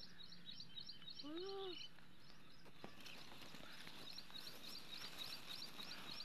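A small bird chirping in quick runs of short high notes, about four or five a second, pausing for a moment in the middle. About a second in, one short voice-like call rises and falls in pitch.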